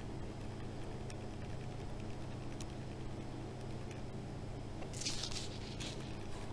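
Light handling noises of a plastic container and lace trim being worked by hand, with faint clicks and a brief rustle about five seconds in, over a steady low hum.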